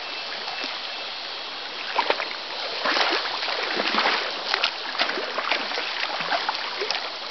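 Irregular splashing in shallow river water as a hooked snakehead is fought close in, the splashes coming thick from about two seconds in, over a steady hiss of water.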